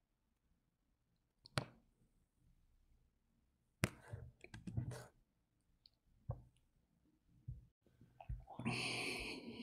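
Quiet room with a few faint, sharp single clicks spaced a second or two apart, then a soft rushing noise lasting about a second near the end.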